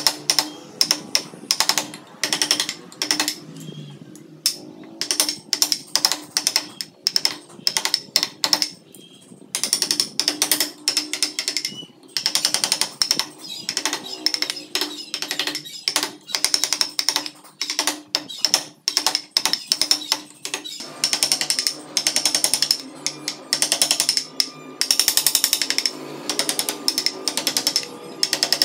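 Rapid bursts of sharp wooden taps as a carving gouge is driven into the wood by quick blows of a wooden mallet, cutting out chips.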